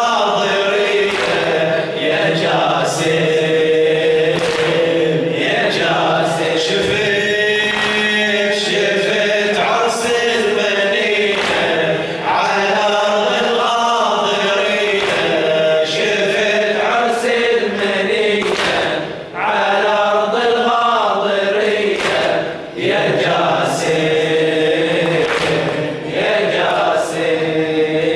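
A male radood chants an Arabic Shia mourning elegy (latmiya) into a microphone in long, melodic sung lines. The chant runs unbroken apart from brief breaths between phrases.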